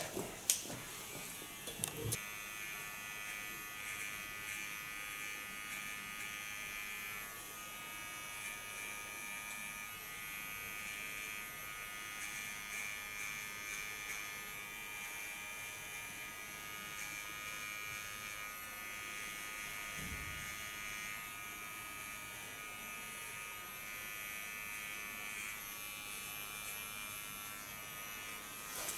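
Small electric hair clipper running with a steady buzzing whine, cutting a lightning-bolt design into shaved hair. A few clicks come first, and the clipper's steady run sets in about two seconds in.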